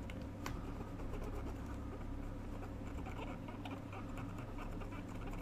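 Cotton bud scrubbing a circuit board wet with isopropyl alcohol: faint, irregular scratching and small clicks over a steady low hum.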